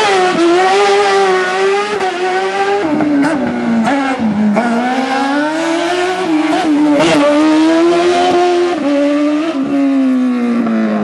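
Competition car's engine revving hard at high rpm. The pitch climbs sharply at the start, dips briefly several times as the throttle is lifted or gears change, and falls steadily near the end as the car slows.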